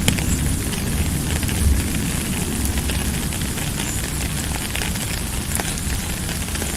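Steady rain falling, an even hiss with scattered crackling drops and a low rumble underneath, and one sharper click right at the start.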